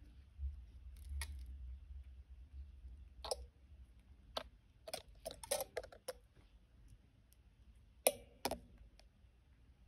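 Wire being threaded and pulled through the loops of a wire-wrapped metal cuff bracelet: scattered light clicks and ticks of wire against metal, a quick cluster of them in the middle and two sharper clicks near the end, over a low rumble of handling in the first few seconds.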